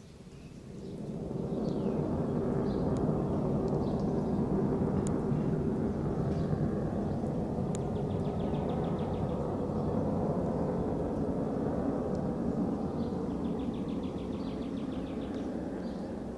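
Fighter jet flying over: a low, steady jet roar swells about a second in, holds, and slowly fades near the end. Birds chirp and trill over it.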